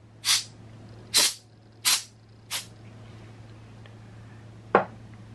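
Four short puffs of air from a hand air blower, blowing dust out of the rangefinder viewfinder optics of a disassembled Canon 7 camera. Near the end, a single sharp click.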